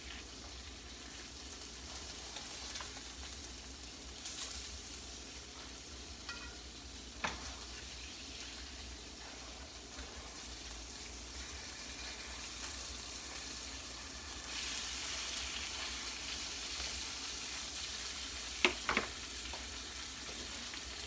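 Pork chops searing in hot oil in a skillet, with vegetables sautéing in a second pan: a steady sizzle that grows a little louder about two-thirds of the way through. A few sharp metal clinks of a utensil against the pan, once about a third of the way in and twice near the end.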